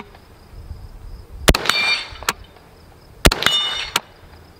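Two rifle shots from an H&K SL8 semi-automatic .223/5.56 rifle, a little under two seconds apart. Each shot is followed within a fraction of a second by ringing metallic clangs as steel targets are hit.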